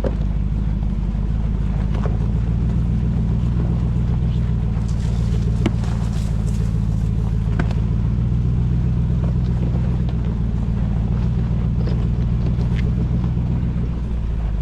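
Lexus GX470's 4.7-litre V8 running steadily at low revs as the truck crawls along a rough trail, with a few light clicks and knocks scattered through.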